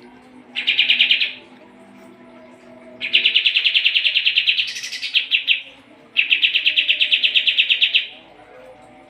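White-shouldered triller (kapas tembak) singing three rapid trills of fast-repeated notes: a short one about half a second in, then two long ones of around two seconds each.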